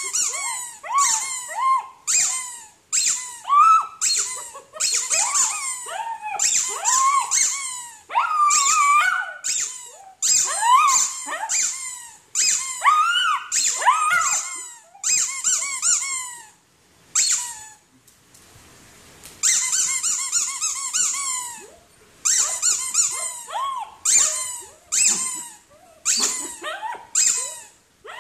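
Rubber squeaky toy shaped like red lips being squeezed again and again, about once a second, with a toy poodle giving high vocal sounds along with the squeaks. There is a short break in the squeaking a little past halfway.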